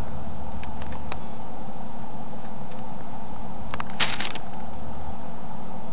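Freezer paper being picked at with tweezers: a few faint clicks, then a short crinkle of paper about four seconds in as the edge of the transfer sheet is lifted. A steady background hum and hiss sits underneath.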